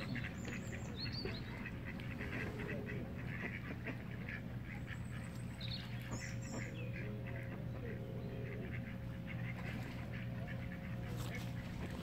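Mallard ducks quacking and chattering softly, with many short low calls in quick succession.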